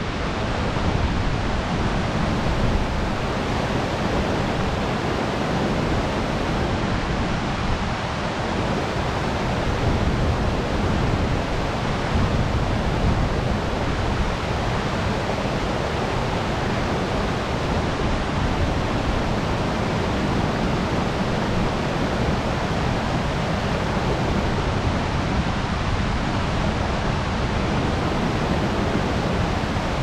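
Steady rush of river water pouring over a low concrete dam and churning in the whitewater below, a deep, even roar with no break.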